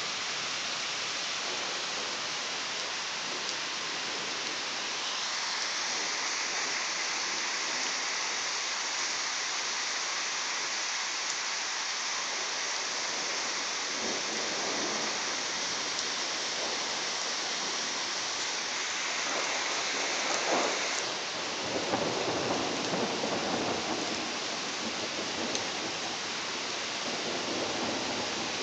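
Steady rain falling during a thunderstorm. Its hiss brightens a few seconds in and drops back suddenly about three-quarters of the way through. Irregular rumbles of thunder roll in over the second half.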